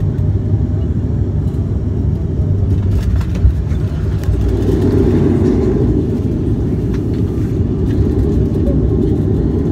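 Cabin noise inside a Porter Airlines Dash 8-400 turboprop airliner: a loud, steady low rumble of engines and propellers that grows louder about four and a half seconds in.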